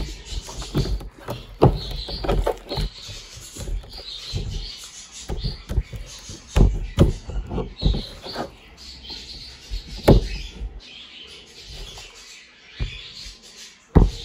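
Sticky slime being kneaded by hand and slapped onto a tabletop as lotion is worked in to soften it: irregular wet squelches and smacks, with a sharp louder smack about ten seconds in. A lotion pump bottle is pressed at the very end.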